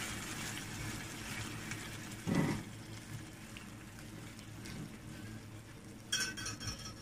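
Fried bread crumbs soaked with milk and sugar sizzling and simmering faintly in a pan on a low flame, with a short louder knock or scrape about two seconds in.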